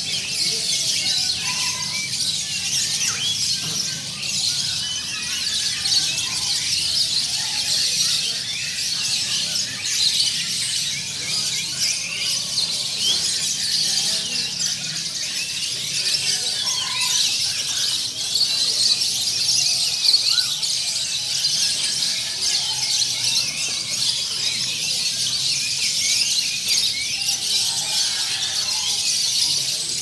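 A dense chorus of many caged songbirds of mixed kinds chirping and singing at once, a steady mass of high chirps and trills.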